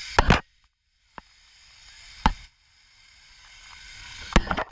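Zip-line ride heard from a body-worn camera: a rushing noise that grows louder twice, broken by sharp knocks of the gear and straps against the camera. The sound drops out to silence twice.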